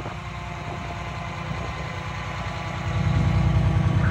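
Pierce aerial fire truck's diesel engine idling with a deep, pulsing rumble, growing louder about three seconds in.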